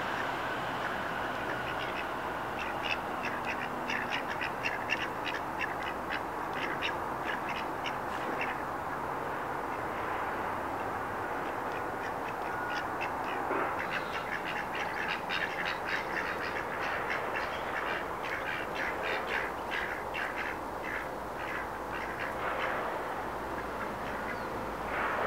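Drakes giving quick raspy calls, several a second, in two long runs of a few seconds each, over steady background noise.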